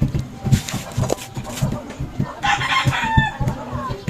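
A rooster crowing about two and a half seconds in, one call lasting under a second, over a low, irregular thumping.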